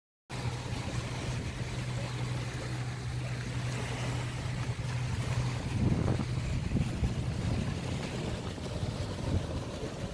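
Wind on the microphone over small waves lapping on a rocky riverbank, with a steady low hum underneath that weakens about six seconds in.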